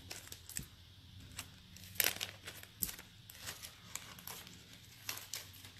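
Faint rustling and crinkling with small clicks as hands handle a bangle and its wrapping; a few short rustles, the loudest about two seconds in.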